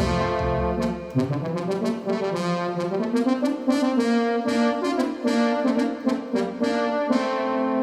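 Yamaha DX7 FM synthesizer playing a brass-like patch: punchy chords and a melody of short, sharply attacked notes, with a low bass part that drops out about a second in.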